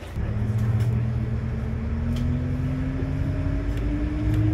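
Shuttle bus pulling away, heard from inside the cabin. The engine drone comes up just after the start, and a drivetrain whine climbs steadily in pitch as the bus gathers speed.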